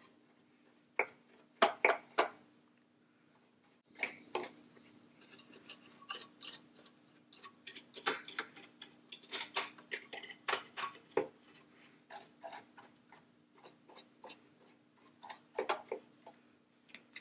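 A brush scrubbing and flicking lint out of a serger's looper area: irregular light clicks and taps as the brush strikes the metal loopers and parts, some in quick runs, over a faint steady hum.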